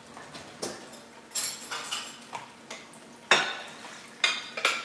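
Dishes and utensils clanking against each other in a kitchen sink while they are rinsed, a string of separate knocks with the loudest about three seconds in.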